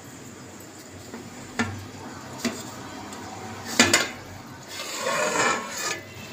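A steel lid on a cooking pot knocking against the rim a few times, then scraping as it is slid off, over a steady hiss from the covered pot cooking.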